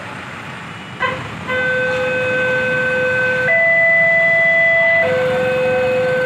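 Railway level-crossing warning alarm starting up about a second and a half in, signalling an approaching train as the barriers close: an electronic two-tone alarm that holds a lower note, switches to a higher one, then back, each note lasting one and a half to two seconds. Road traffic runs underneath.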